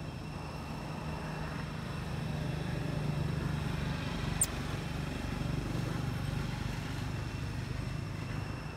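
Steady low motor hum, like a vehicle engine running, with one brief sharp high squeak about four and a half seconds in.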